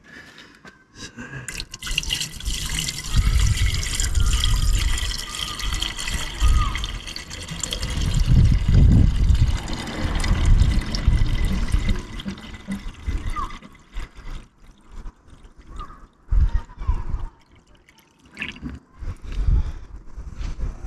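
Water poured from a plastic jug into a car's coolant expansion tank, trickling and gurgling as it fills. It pours steadily for about ten seconds, then comes in short dribbles, with a low rumble of wind on the microphone.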